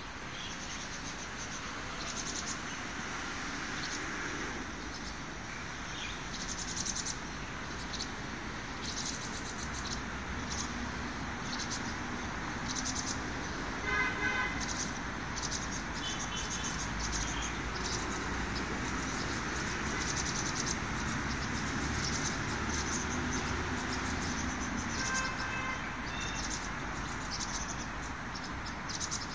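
Outdoor ambience: insects chirping in short, high-pitched bursts over a low hum of distant traffic, with a brief bird call about fourteen seconds in and again near twenty-five seconds.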